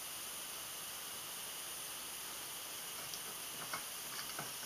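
Steady background hiss, with a few faint small clicks near the end from fingers handling a small plastic battery cap and tether ring.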